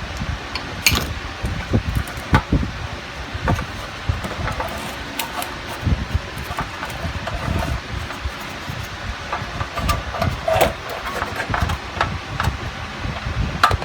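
Irregular metallic clicks, knocks and scraping as hand tools work a rivet out of a metal toolbox, over the steady noise of an electric fan.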